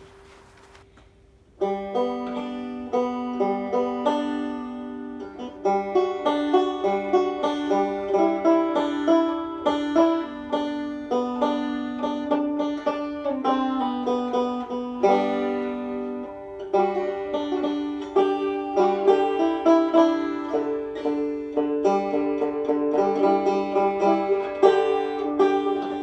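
Background music: a plucked banjo tune that starts about a second and a half in.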